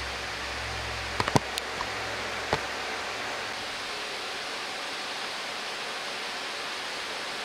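Steady, even rushing noise of a restaurant kitchen, with a few light clicks about a second in and one more at about two and a half seconds.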